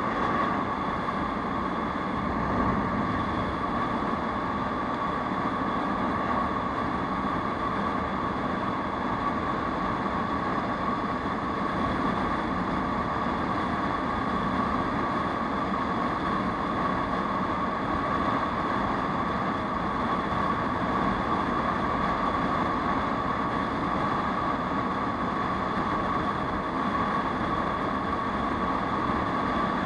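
Aprilia SR 150 scooter cruising at a steady speed: wind rush over the microphone mixed with the even drone of its single-cylinder engine, with a steady hum running through it and no change in pace.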